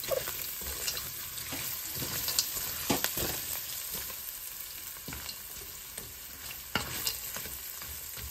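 Onion, boiled potato and roasted peanuts sizzling in oil in a stainless steel frying pan, stirred with a wooden spatula that scrapes and knocks against the pan now and then.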